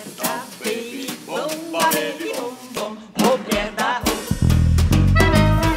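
Live drum kit: separate drum and cymbal strikes mixed with other pitched sounds. About four seconds in, fuller music with a strong bass line takes over.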